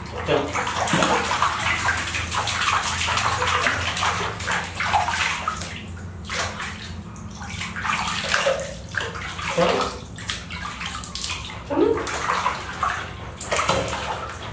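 Water splashing and sloshing in a plastic basin as hands scoop it up and pour it back in while a baby monkey is bathed, in uneven bursts.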